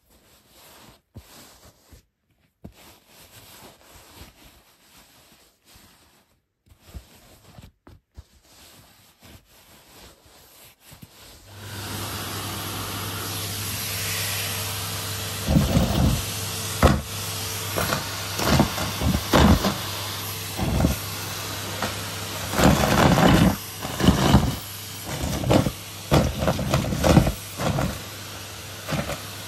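Faint rustling and handling sounds, then a vacuum cleaner switches on about a third of the way in and runs with a steady hum and hiss. From about halfway, repeated loud, irregular crackling and rattling bursts sound over the motor as debris is sucked into the nozzle and hose.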